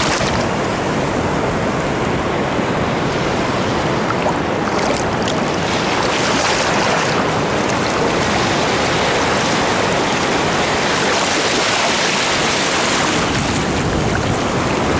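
Ocean surf washing over sand in the shallows at the water's edge: a steady rush of water. The hiss of foam swells about five seconds in and again near the end as waves wash in.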